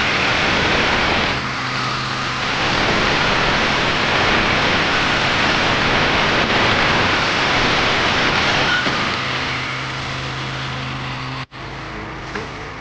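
Motorcycle engine of a motorized cart running loudly, with a steady low hum under a dense mechanical noise. It cuts out abruptly near the end and carries on quieter.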